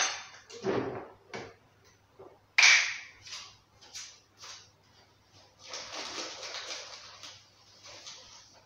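Kitchen handling noises: a few knocks of objects being picked up and set down on a counter, the loudest about two and a half seconds in, then a stretch of rustling about six seconds in, over a faint steady hum.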